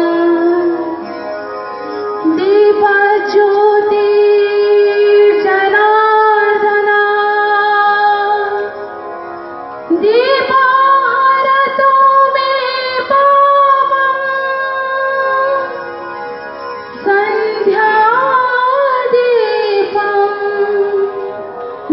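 A woman singing a slow song solo, holding long notes; each phrase opens with an upward slide, with short pauses between phrases.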